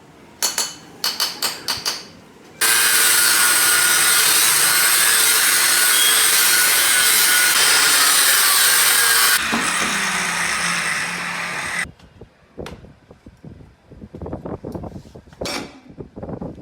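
A power tool cutting steadily through the steel casing of a fridge compressor for about seven seconds, then running on more quietly until it stops. Metal clinks and taps come before it, and scattered metal knocks and clinks follow.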